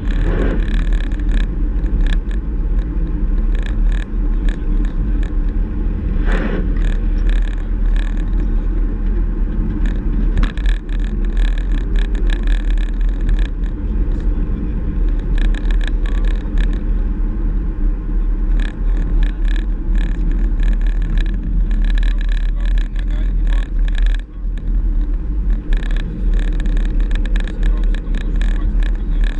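Vauxhall Astra GTC Mk6 driving along, heard from inside the cabin: steady engine and tyre road noise with a strong low rumble, broken by frequent small knocks and rattles.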